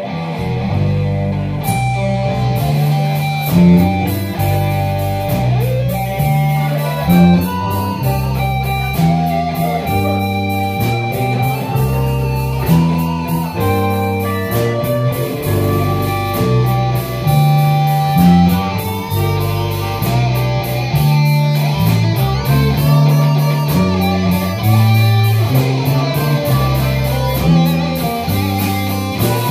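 Live blues band playing an instrumental passage: electric guitar lead lines over electric bass and a drum kit, with no singing.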